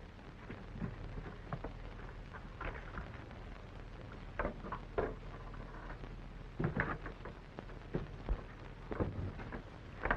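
Steady hiss and crackle of an old film soundtrack, with a few scattered short knocks and scuffs.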